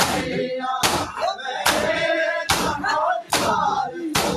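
A crowd of men beating their chests in unison in Shia matam, one loud slap about every 0.85 seconds, with voices between the strikes.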